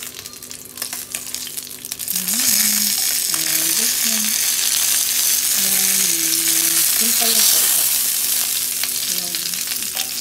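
Skinless chicken pieces sizzling as they fry with no added oil in a stainless-steel Saladmaster electric skillet, while a wooden spatula turns them. The first seconds hold scattered crackling ticks; about two seconds in the sizzle turns into a much louder, steady hiss.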